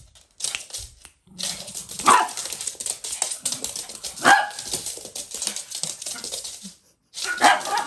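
Small dogs playing: three barks, about two seconds in, about four seconds in and near the end, over a patter of claws clicking and scrabbling on a laminate floor.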